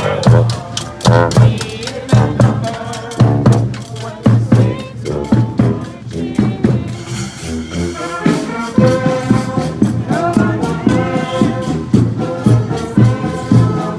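Street brass band playing a second-line parade tune: drums beating a steady rhythm with horns playing over it, the horns holding longer notes in the second half.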